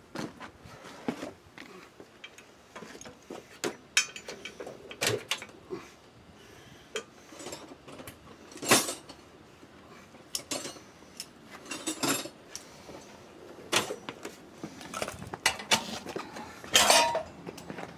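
Metal hand tools clinking and clattering in a steel tool chest as it is rummaged through, in scattered sharp clinks with a few louder clanks.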